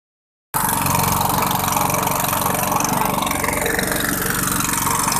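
A small boat's engine running steadily with a fast, even pulse, under a hiss of wind or water.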